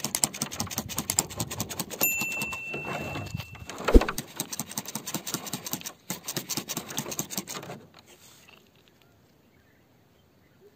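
Close crackling and squelching of fingers working in wet mud and rubbing a muddy crystal: a dense run of small clicks with one sharper knock about four seconds in. It stops about eight seconds in.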